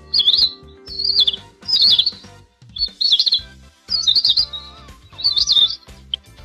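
Cheetah chirping: a run of high, bird-like chirps about once a second, over background music.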